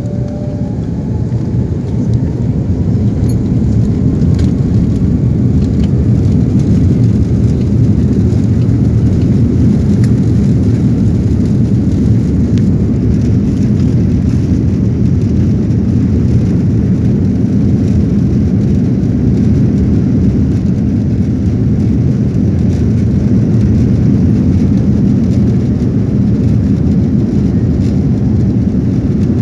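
Jet airliner heard from inside the cabin while rolling along the runway: a loud, steady rumble of engines and wheels. A faint whine climbs in pitch during the first few seconds as the noise builds, the engines spooling up for takeoff.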